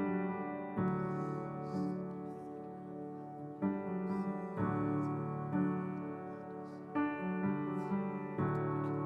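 Piano or electric keyboard playing a slow worship-song introduction, sustained chords changing about once a second.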